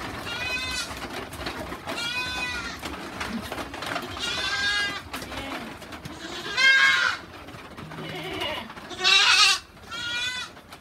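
Goats bleating: about six separate wavering bleats, the two loudest about two-thirds of the way in and near the end.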